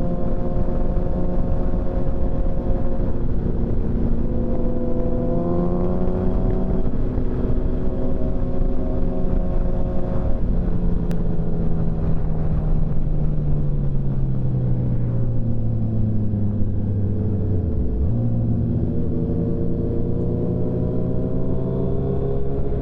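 Motorcycle engine running at road speed over a steady rush of wind noise. The engine note rises a few seconds in, then falls slowly for several seconds as the bike slows, dips sharply about eighteen seconds in, and climbs again.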